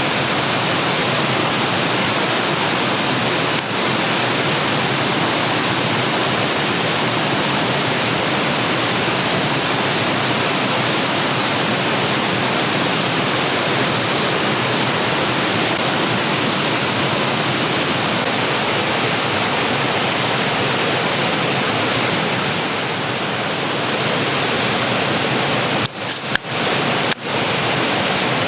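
Steady rushing of flowing water, an even hiss-like noise, briefly cutting out a few times near the end.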